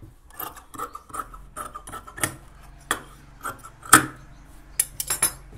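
Large tailoring scissors cutting through folded fabric: a run of irregular snips, with a sharper click about four seconds in.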